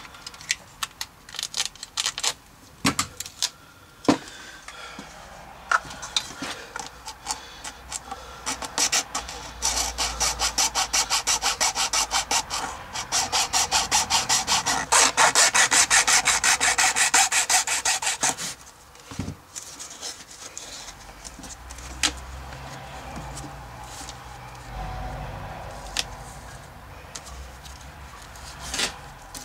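Thin saw blade sawing through the spout of a plastic funnel in rapid, even back-and-forth strokes for about nine seconds through the middle. Before and after, duct tape is unrolled and the taped hose is handled, giving scattered rips and clicks.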